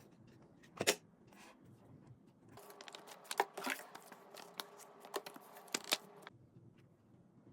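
Clicks and rustles of a Dyson Supersonic hair dryer being handled. A faint steady hum switches on about two and a half seconds in and cuts off abruptly about six seconds in.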